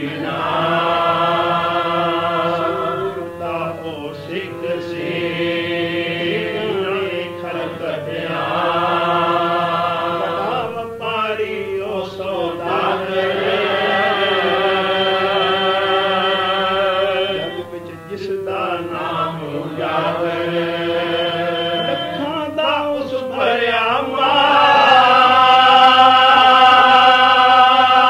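Sikh kirtan: a male voice singing a devotional hymn in long, wavering held phrases with short breaks between, over a steady harmonium drone. The last phrase, about three-quarters of the way in, is the loudest.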